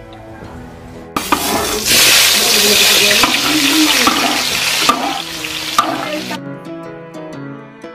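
Chopped food dropped into hot oil in a wok, sizzling loudly from about a second in and dying down after about five seconds. Soft guitar music plays underneath and is heard alone near the end.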